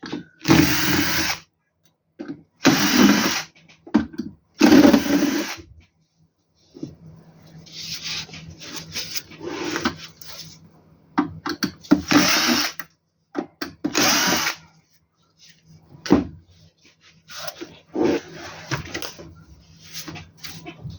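Cordless electric screwdriver or drill whirring in short bursts of about a second, several times over, backing out the inverter's cover screws, with quieter clicks and handling noise between the bursts.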